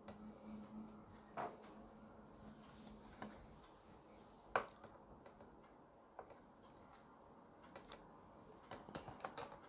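Faint handling sounds of finishing crochet work: scattered small clicks and taps, the sharpest about halfway through. Near the end comes a quick run of clicks as scissors are brought to the cotton thread to cut it.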